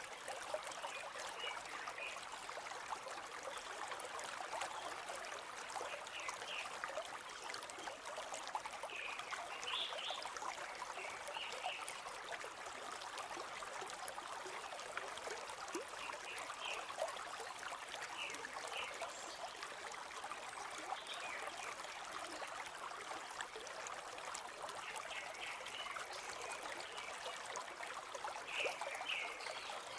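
Steady rushing and trickling of a flowing forest river, with short high chirps of small birds scattered through it.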